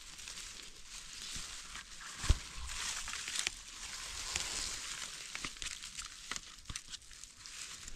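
Rustling and crackling of grass, dry leaves and soil as a mushroom is dug out from under a log with a small knife and pulled free, with scattered small clicks and one dull thump about two seconds in.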